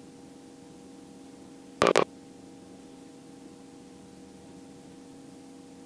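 Steady low hum with a few fixed tones: the running Robinson R44 II helicopter's drone, heard through a noise-cancelling headset intercom that removes most of it. About two seconds in, two brief clicks, like the intercom or radio keying.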